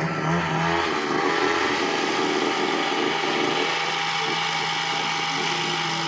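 Zomax ZNG 4303 brush cutter's two-stroke engine running at a steady speed.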